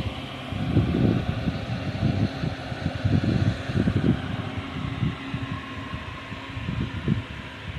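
Single-cylinder air-cooled 186FA diesel engine running steadily, with uneven low thumps over the steady engine noise.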